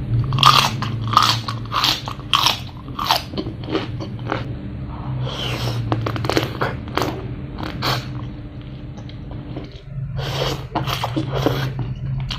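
A person biting and chewing crunchy food, the crunches coming about every two-thirds of a second at first and then more irregularly, over a steady low hum.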